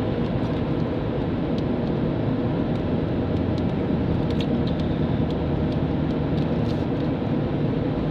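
Steady engine and tyre noise of a vehicle driving at road speed, heard from inside the cab, with a few faint light clicks here and there.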